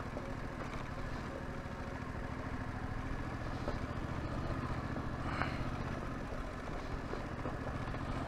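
Yamaha Tracer 7's 689 cc parallel-twin engine running steadily while the bike is ridden, with road and wind noise and a brief click about five seconds in.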